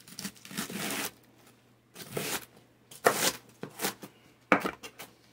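Chef's knife cutting through crisp cabbage leaves on a plastic cutting board: a series of irregular, crunchy strokes, with a longer rustling cut in the first second.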